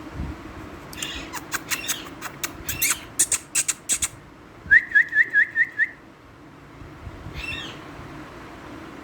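Indian ringneck parrot calling: a rapid run of sharp, short shrieks, then six quick rising whistled notes, then one more short call near the end.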